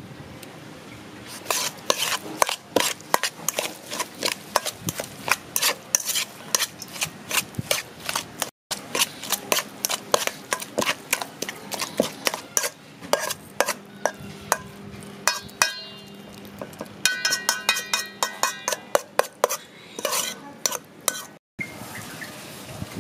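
A metal spoon stirring and scraping a wet mix of chopped vegetables and egg in a stainless steel bowl, with many quick clinks of the spoon against the bowl. Past the middle the bowl rings briefly under the strokes.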